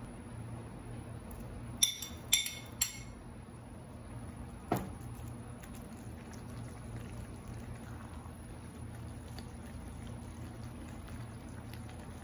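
Cream pouring from a carton into a sauce in a pan, over a low steady hum. About two seconds in come three quick ringing clinks, and a single knock near five seconds.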